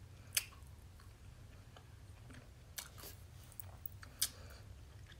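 Quiet mouth and fork sounds of someone tasting ice cream: a few scattered soft clicks and smacks over a faint low hum.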